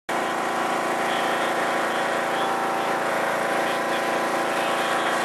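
Riding lawn mower engine running steadily.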